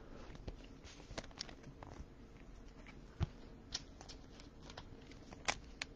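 Trading cards being handled and slid into clear plastic sleeves by gloved hands: faint, scattered ticks and rustles of card and plastic, with a few sharper clicks about three seconds in and again near the end.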